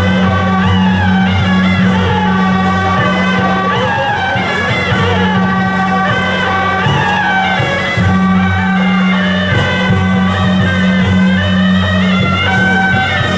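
Loud music with a moving melody over a steady deep bass drone, accompanying a troupe's performance in a temple procession.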